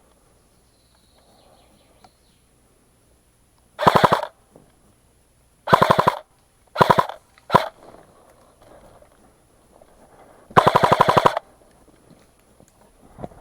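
Airsoft gun firing on full auto in five short bursts of rapid clicks, the last burst the longest.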